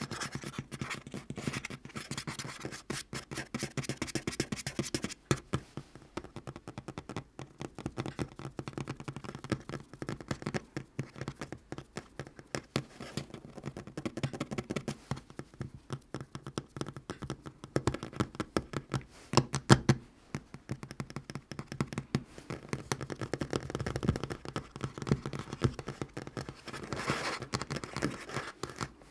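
Natural fingernails tapping rapidly on a tabletop, a dense run of quick clicks and knocks, with a few louder taps about two-thirds of the way through.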